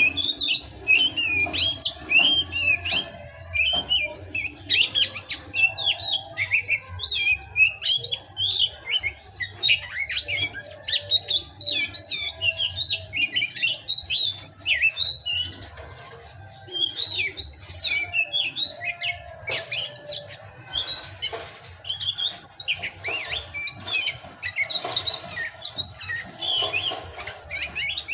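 Oriental magpie-robin (kacer) singing a fast, continuous, varied song of high whistles and chirps, with a short break about halfway through.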